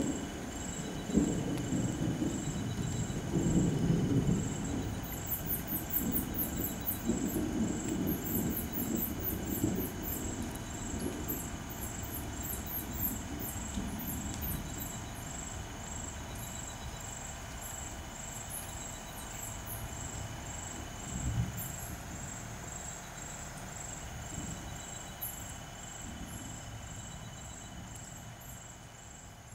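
Low, uneven rumbling that swells several times in the first ten seconds and then fades, with a single low thump about two-thirds of the way through. Over it runs a steady, evenly pulsing high chirp with quick very high chirps scattered through the middle.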